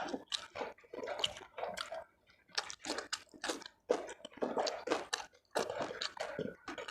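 Close-up wet chewing and lip-smacking of a mouthful of food: a quick, irregular run of moist smacks and clicks with brief pauses between chews.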